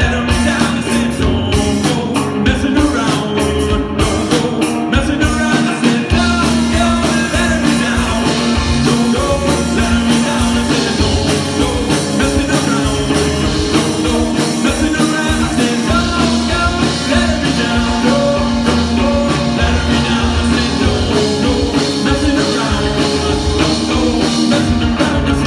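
Live alternative rock band playing loudly: drum kit keeping a steady beat under electric guitars and bass.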